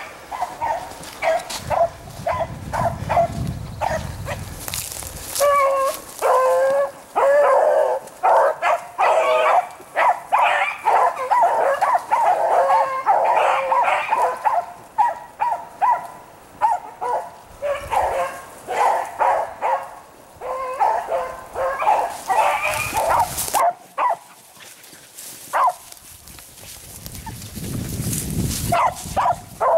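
A pack of rabbit-hunting beagles barking and baying, many voices overlapping, as the dogs work a rabbit's trail. The calls come thickest through the middle and thin out to a few scattered barks near the end.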